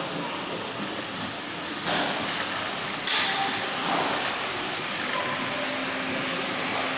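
Steady background noise of a large hall housing a working model railway layout, broken by two short hissing bursts about two and three seconds in.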